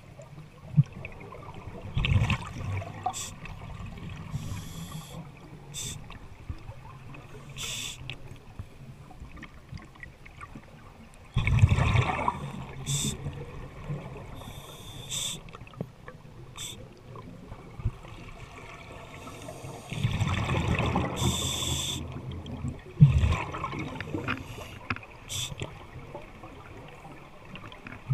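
Open-circuit scuba regulator breathing underwater: short hisses of the demand valve on each inhalation, and two longer rumbling bursts of exhaled bubbles about eight seconds apart. A couple of sharp knocks stand out, the loudest near the end.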